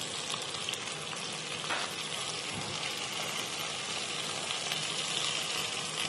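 Food frying in a skillet: a steady sizzling hiss.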